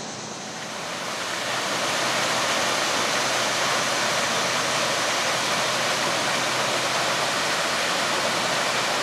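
A steady, even rushing noise with no distinct events, swelling over the first two seconds and then holding level.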